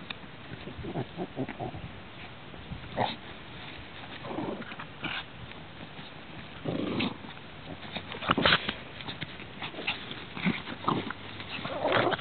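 Dogs at play making short, irregular noises, loudest about eight seconds in and again near the end.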